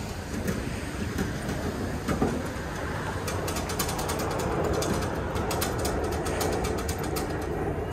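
Keys jingling and clicking metal as keys are tried in the lock of a car wash token box, a rapid run of clicks starting about three seconds in, over a steady low rumble.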